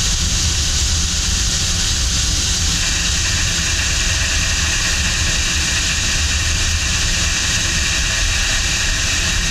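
CNC lathe finish-boring the inside of a 316 stainless steel part with a boring bar under flood coolant: a steady hiss of coolant spray and cutting over the low running of the spindle, with a faint steady whine.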